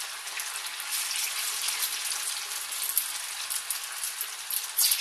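Marinated chicken pieces deep-frying in hot oil in a steel kadai: a steady sizzle full of small crackles. There is one sharp click near the end.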